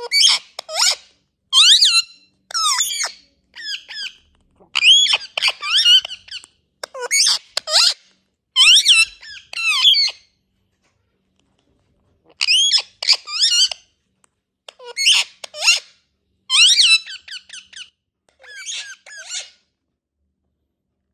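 Indian ringneck parrot giving a string of shrill, squeaky calls in short bursts, each sliding up and down in pitch, with a pause of about two seconds midway.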